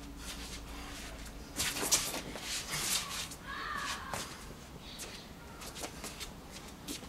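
Feet shuffling and scuffing on stone patio paving, with swishes of clothing and a short bat swung through the air, heard as a few short noisy bursts.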